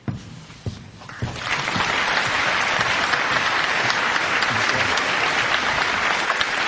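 A large theatre audience applauding. The clapping starts about a second in and then holds steady and dense.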